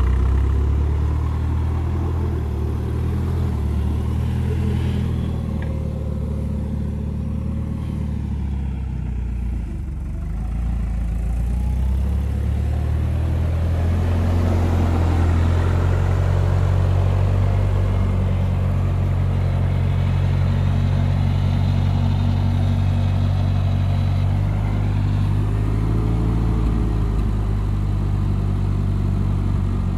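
Old forklift's gasoline engine running close by, easing off about ten seconds in, then speeding up and holding a steady higher run as the mast lifts the front corner of a pickup truck.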